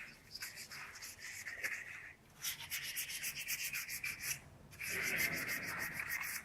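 Rapid rhythmic rubbing or scraping, about five strokes a second, broken by two short pauses.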